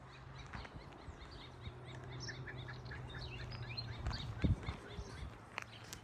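Birds chirping in a quick run of short, high, repeated notes, over a low steady hum, with a dull thump about four and a half seconds in.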